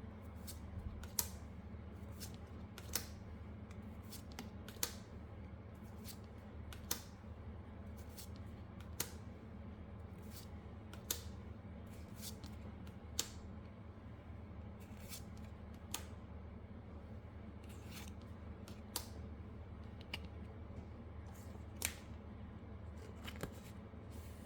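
Pokémon trading cards being handled and flipped through one at a time, a sharp card snap about every two seconds with lighter ticks and rustles between, over a low steady hum.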